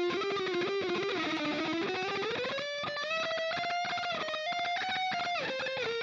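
Electric guitar played through the Mooer GE 150 multi-effects on its 'E650 V1 Dist' distortion preset. It plays a single-note lead line with rapid repeated picking; the note slides down about a second in, then climbs and holds higher pitches.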